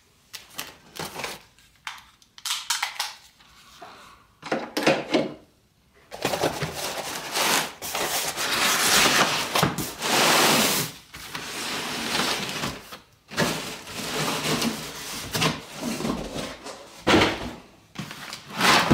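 A cardboard shipping box being cut open and unpacked. First come scattered short scrapes and ticks as it is cut open. From about six seconds in there is a long stretch of cardboard rubbing and scraping as the flaps are folded back and the boxed band saw kit is slid out, then more intermittent cardboard handling.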